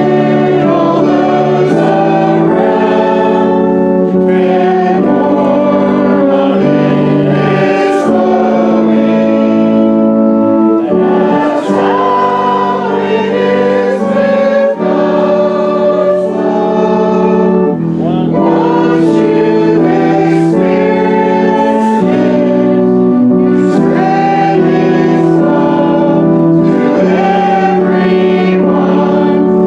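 Congregation singing a hymn together with instrumental accompaniment, in held notes that change every second or two.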